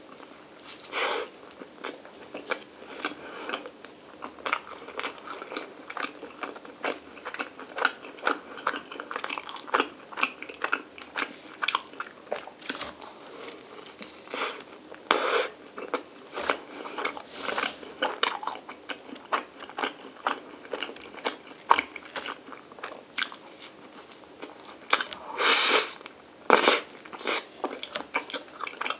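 Biting and chewing of soft white bread spread with Nutella and vanilla ice cream: many short, irregular bites and chews, with louder bites about a second in, around halfway and near the end.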